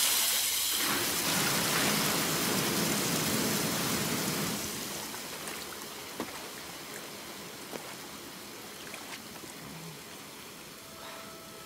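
Water gushing from a row of bath taps into a large tub. It is loud at first, then eases after about four seconds to a softer running-water sound with a few small clicks.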